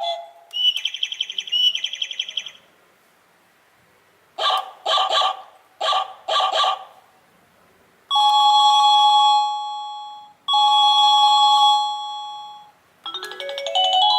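INTENDVISION wireless doorbell receiver playing several of its built-in chimes one after another. First a warbling electronic trill, twice. Then two groups of three short electronic pulses, then two long held tones that each fade away, and near the end a tune climbing note by note.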